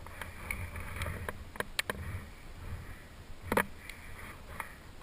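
Rustling and wind noise on a helmet-mounted camera's microphone, with a few sharp knocks, the loudest about three and a half seconds in.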